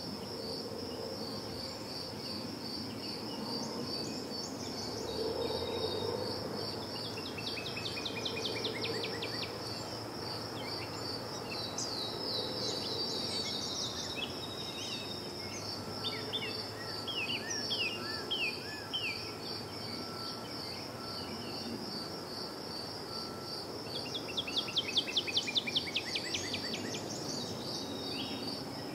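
A cricket chirping steadily in an even, high-pitched pulse, with songbirds breaking in several times with quick trills and chirps, loudest near the end, over a low background rumble.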